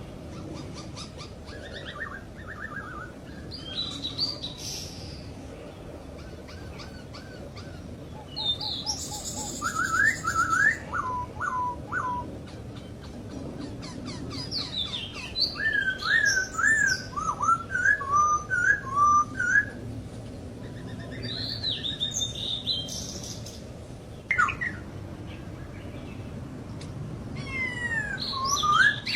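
Poksay hongkong (masked laughingthrush) calling: groups of quick whistled and chattering notes that slide up and down, with short pauses between the groups.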